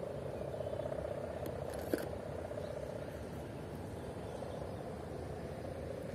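One sharp click about two seconds in as the telescopic whip antenna is fitted onto its bottle-wound loading coil, over steady outdoor background noise with a faint wavering hum.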